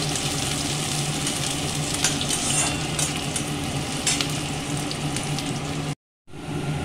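Chopped onions sizzling as they fry in mustard oil in a metal kadai, with a metal spatula scraping and clicking against the pan now and then. The sound cuts out briefly about six seconds in.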